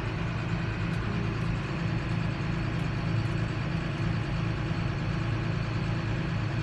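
John Deere 7530 tractor's six-cylinder diesel engine running steadily, heard from inside the cab as a low, even drone.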